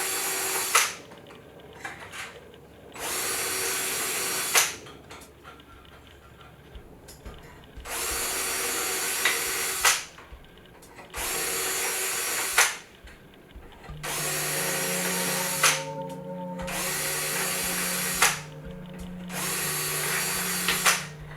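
A power drill run in short bursts of about a second and a half, roughly seven times, each ending with a sharp click or knock. A low pulsing hum joins about two-thirds through.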